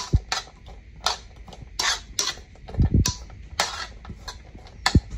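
Metal spoon scraping and clinking against a frying pan while stirring sliced Chinese sausage, in short irregular strokes about one or two a second. A few dull low thumps come with them, one near the start, one around three seconds in and one near the end.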